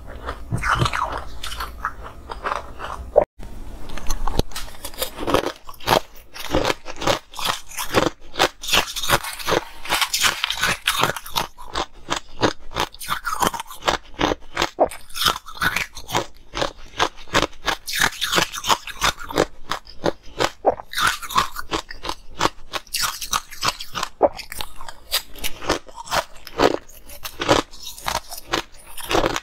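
Ice being bitten and chewed up close, a dense run of crisp crunches, with a brief break about three seconds in. Most of it is crushed coloured ice chewed mouthful after mouthful into a lapel microphone.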